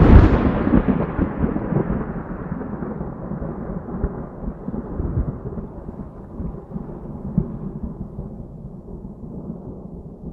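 Thunderclap: a loud crack at the start, then a long rolling rumble that slowly fades away.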